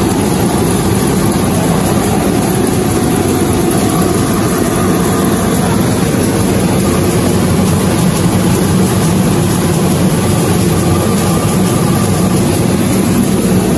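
25D combined rice milling machine running while it processes rice: a loud, steady mechanical drone with no let-up.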